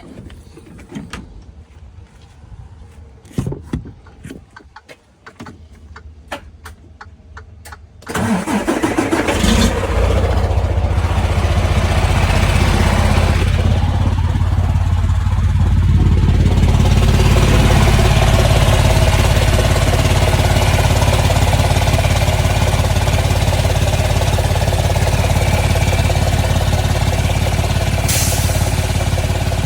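A run of light clicks, then a Freightliner Cascadia's diesel engine starts about eight seconds in and settles into a steady idle. The engine has an exhaust leak, a common issue on new Cascadias.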